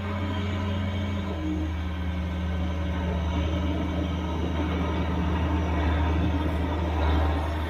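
Case IH 9280 articulated four-wheel-drive tractor's 375-horsepower six-cylinder diesel engine running steadily as the tractor drives slowly closer. Its pitch drops slightly about a second in, and it grows gradually louder toward the end.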